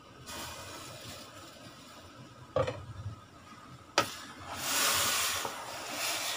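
A wooden spoon stirring sliced ginger with sugar and water in a stainless steel pot, scraping along the bottom so the sugar does not stick. The stirring is loudest about five seconds in. Two sharp knocks come a little before, about two and a half and four seconds in.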